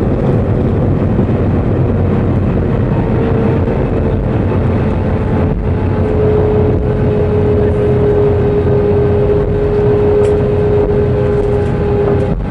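Cabin noise of an Airbus A320 airliner rolling on the runway after touchdown: a loud, steady rumble from the engines and the ground roll, with an engine tone that slowly drops in pitch as the jet slows.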